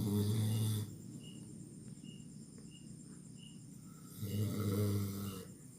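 A sleeping person snoring: two long snores about four seconds apart, one at the start and one about four seconds in. Crickets chirp steadily in the background.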